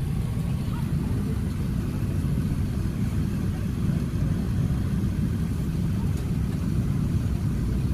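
Cabin noise of an Airbus A380 taxiing: a steady low rumble from the engines and rolling airframe, heard from inside the cabin.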